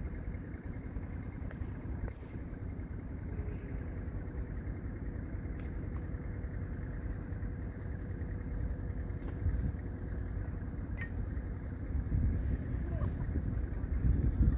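Strong wind buffeting the microphone: a low, uneven rumble that gusts harder in the last few seconds, with a few faint short clicks.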